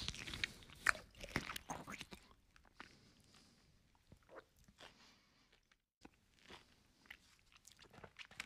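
Close-up chewing and crunching of a mouthful of duck curry and rice, with wet mouth clicks. It is densest and loudest in the first two seconds, then sparser, and cuts out briefly about six seconds in.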